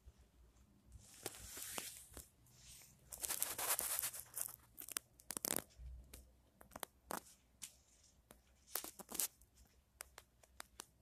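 Domestic cat shifting and stepping on a fabric bedspread close to the microphone: irregular bursts of rustling and scratching with sharp clicks, loudest about three to four seconds in.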